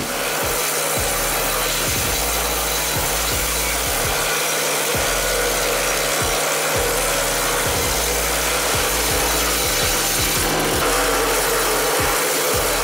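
Tractor-driven WM-8H disc wood chipper chewing through leafy branches: a steady, dense grinding hiss of chipping, with chips blowing out of the discharge chute.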